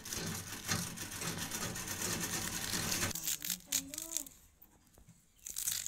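A small hand-held knife slicing through a bunch of karemua (water spinach) leaves and stems held against the thumb, making a run of crisp cuts. There are a few sharp clicks near the end.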